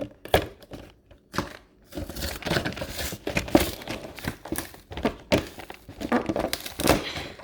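Plastic shrink-wrap on a trading-card collection box crinkling and tearing as it is pulled and picked at by hand: a few sharp crackles at first, then about five seconds of continuous crinkling.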